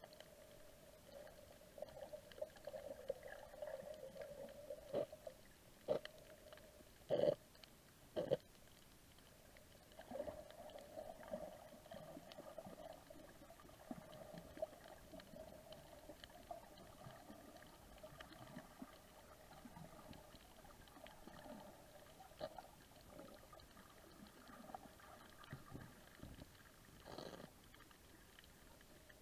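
Underwater reef ambience heard through a camera housing: a faint steady muffled hum with a few sharp clicks, several in quick succession between about five and eight seconds in and one more near the end.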